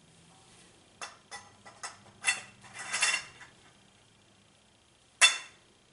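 Metal frame poles and corner fittings clinking and clacking together as they are handled and pushed together: a quick run of sharp clinks, a short scraping rattle, then one loud clack near the end.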